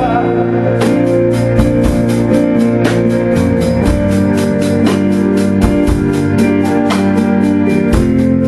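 Band music: sustained organ-like chords over a steady drum beat of about four hits a second, with an electric guitar played along.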